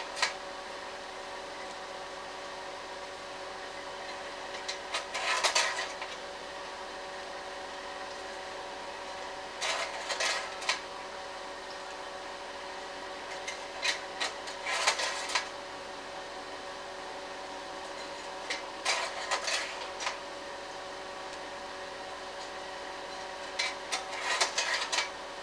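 Slide projector running with a steady fan hum. Every four to five seconds, five times in all, a short clatter of clicks sounds as the mechanism changes to the next slide.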